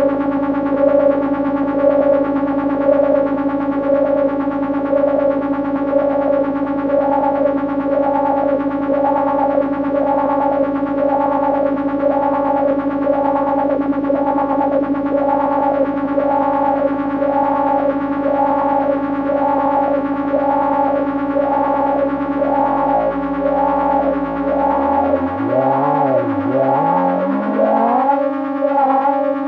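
Negistor Cracklebox drone generator holding a steady, buzzing electronic drone through a Be-Filter dual auto-filter, which sweeps its tone about once a second. From about two-thirds of the way in, wobbling pitches glide up and down beneath and through the drone.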